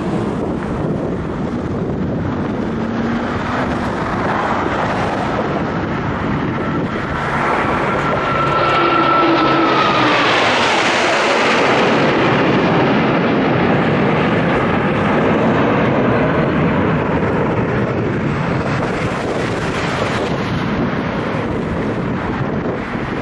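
Jet aircraft noise from a Blue Angels F/A-18 Hornet passing by. It swells to its loudest in the middle, and a high whine drops in pitch as the jet goes past, then it eases off to a steady rumble.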